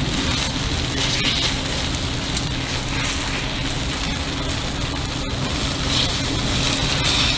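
Takoyaki batter sizzling steadily in a hot takoyaki griddle pan, a continuous crackling hiss.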